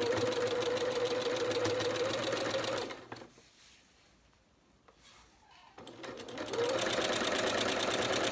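Janome sewing machine stitching at a steady speed with a motor whine. It stops about three seconds in and starts again about three seconds later.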